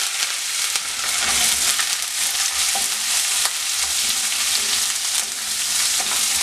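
Sliced shallots, dried red chillies and curry leaves sizzling in hot oil with mustard seeds and rice: the tempering for a thoran being fried. The mix is stirred with a wooden spatula in a nonstick pan, with a steady hiss and a few faint ticks.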